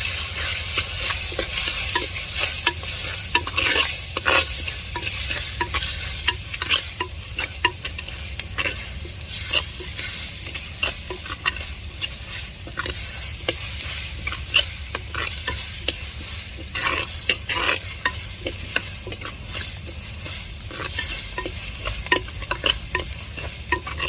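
Tomatoes, small onions and ground spice paste sizzling in hot oil in a pan, stirred with a spoon that scrapes and clicks against the pan many times.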